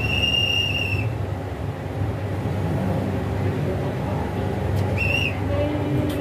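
A hand whistle blown twice: one steady blast of about a second, then a short blast about five seconds in. A steady low rumble runs underneath.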